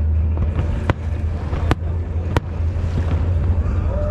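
Fireworks exploding in a display: three sharp bangs about three-quarters of a second apart over a steady low rumble.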